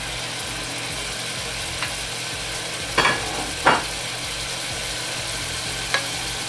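Chicken pieces sizzling in hot vegetable oil in a pressure cooker pot on high heat, a steady frying hiss. A few sharp knocks on the pot a little after the middle, and one more near the end, as a wooden spoon works the chicken.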